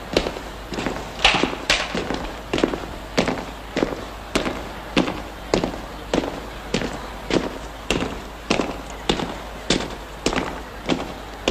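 Regular sharp impacts, about one and a half to two a second in a steady marching rhythm, typical of a body of troops' boots stamping in step on the square's pavement.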